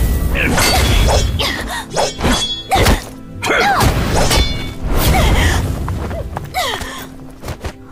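Dramatic soundtrack music under fight sound effects: a run of thuds and whacks with sweeping whooshes between them, thinning out and getting quieter near the end.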